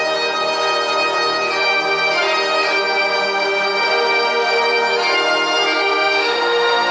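Bagpipes playing a slow melody of long held notes over a steady drone.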